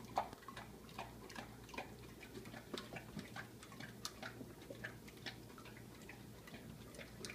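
Great Dane licking ice cream: faint, irregular wet clicks and smacks from its tongue, a few each second.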